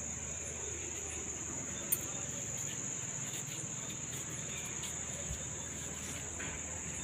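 Crickets chirping: a steady, high-pitched trill, with one brief sharp click about two seconds in.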